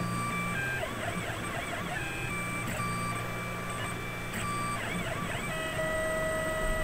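Tormach PCNC 1100 mill's stepper-driven axes whining as the machine traces engraving moves. The whine holds steady tones that jump to new pitches and glide up and down as each move starts and stops, over a low steady hum.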